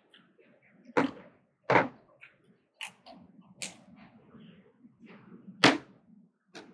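Boiled murex (Chicoreus asianus) shell being worked by hand and with a pick to draw out the meat: about six sharp, irregularly spaced clicks of the pick and fingers against the hard shell, over a soft rustle of handling.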